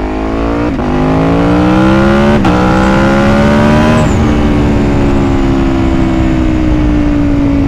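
Aprilia Tuono V4 1100RR's V4 engine accelerating hard, its pitch climbing and dropping at three quick upshifts, then holding a steady, slowly falling note as the throttle eases.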